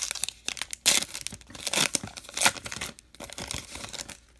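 Trading card pack wrapper being torn open and crinkled by hand, in a string of sharp crackling bursts, the loudest about a second in, dying down near the end.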